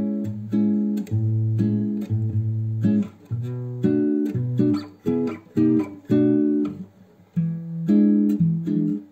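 Background music: guitar chords plucked in a steady rhythm.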